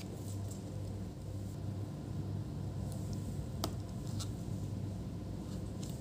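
Steady low electrical hum with a few faint clicks of small parts being handled over a laptop motherboard, one clearer click a little past halfway.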